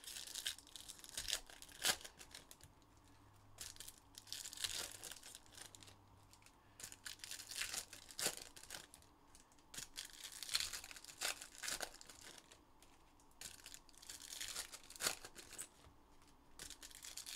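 Trading-card pack wrappers being torn and crinkled while cards are handled, in irregular bursts that come and go, with a few sharp snaps.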